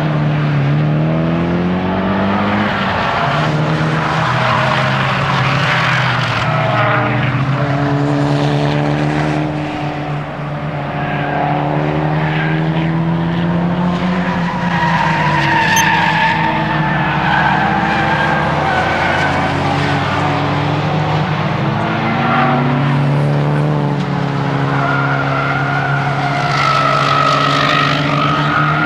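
Nissan S15 Silvia's four-cylinder engine driven hard on a circuit, its pitch rising and falling repeatedly through acceleration and gear changes. Tyres squeal through corners about halfway through and near the end.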